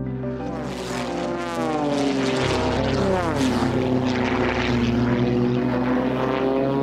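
Red Bull Air Race plane's six-cylinder Lycoming piston engine and propeller at full power. Its pitch falls steeply in the first few seconds as the plane flies past, then holds as a steady drone.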